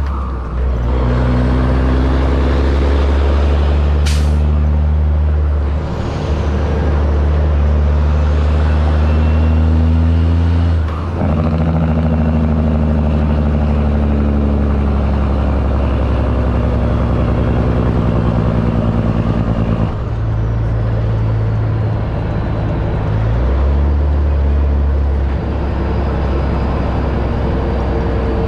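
Straight-piped Caterpillar C15 diesel in a Kenworth T800 hauling a loaded lowboy, pulling up through the gears: the engine note holds steady in each gear and steps down at each of about five shifts. A short sharp hiss about 4 seconds in.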